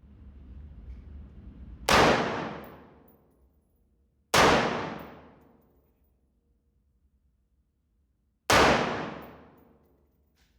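Three gunshots at uneven intervals, about two and a half then four seconds apart, each a sharp crack that rings out for about a second.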